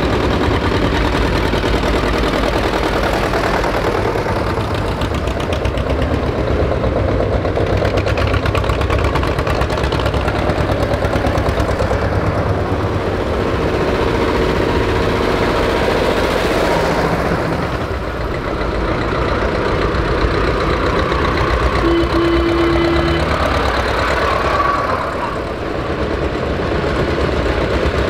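Old tractor engines chugging as a line of vintage tractors drives past one after another. The sound swells and eases as each machine goes by.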